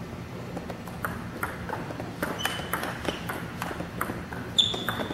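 Table tennis rally: the ball clicking back and forth off the paddles and the table, a quick run of sharp ticks, about two to three a second, starting about a second in. A short high squeak comes near the end, from a shoe on the court floor.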